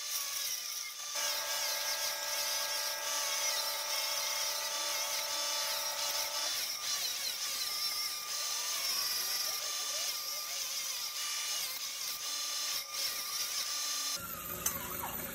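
Central Machinery bench grinder running while a steel bracket is held against the grinding wheel, a steady motor whine under a high grinding hiss, as the metal is ground clean for welding.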